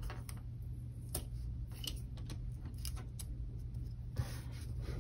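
Faint, irregular small clicks and taps of hands working washi tape and an X-Acto craft knife on a paper planner page, over a steady low hum.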